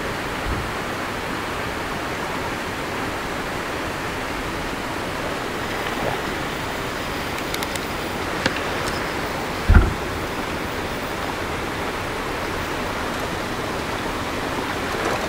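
Steady, even hiss of outdoor background noise, with one dull thump about ten seconds in.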